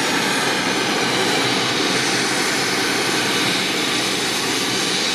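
Medevac helicopter's turbine engines and rotor running steadily: an even rush with a faint steady whine through it.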